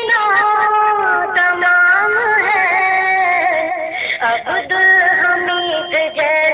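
A naat, an Islamic devotional song, sung by a solo voice in long held, wavering notes.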